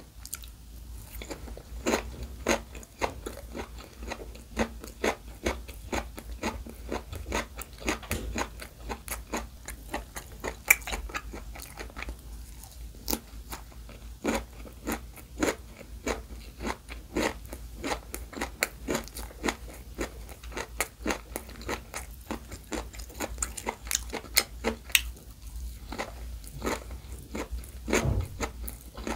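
Close-miked crunchy chewing of keto gimbap rolled without rice: seaweed wrapped around carrot, raw cucumber and pickled radish. A steady run of sharp crunches, a couple a second, starts about two seconds in.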